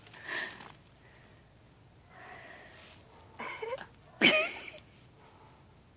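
A toddler's breathy gasps and two short, high-pitched squeals that fall in pitch, about three and a half and four seconds in, the second the louder, as he reacts to a mouthful of cold snow.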